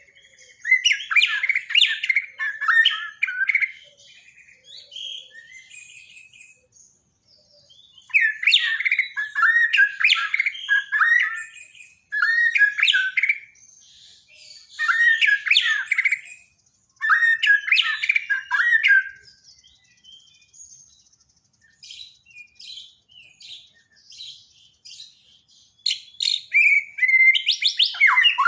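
White-rumped shama (Borneo murai batu) singing in bouts of rapid, varied whistled and harsh phrases, with short pauses and softer scattered notes between bouts.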